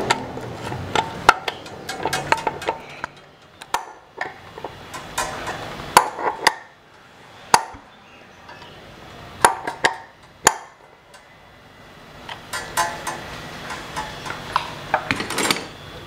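Irregular metallic clicks, clinks and light knocks as copper tubing and fittings are handled and worked into the steel flange of an electric water heater.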